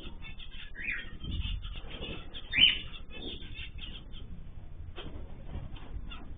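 Cage birds calling and chattering, with a loud squawk about two and a half seconds in and a shorter call about a second in.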